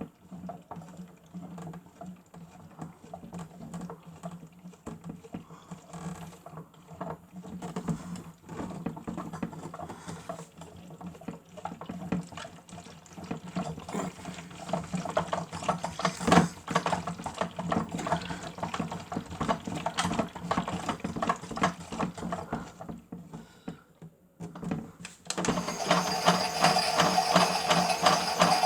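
Miele W1 toy washing machine running its wash cycle: a small electric motor hums steadily as the drum turns, with water sloshing inside. About 25 seconds in, a louder, higher whir starts suddenly and keeps going.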